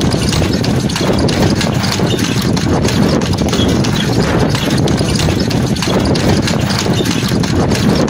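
A carriage horse's hooves clip-clopping on asphalt as it pulls a horse-drawn carriage, over the steady rumble of the carriage's wheels rolling on the road.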